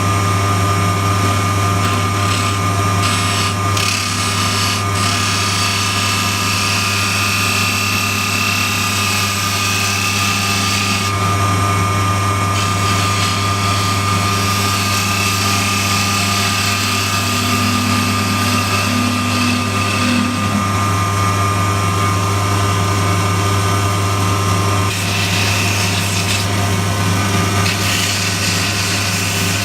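Wood lathe running steadily with a low motor hum while a turning tool cuts into the spinning wood of a small spindle, a rough hiss that shifts as the cut changes.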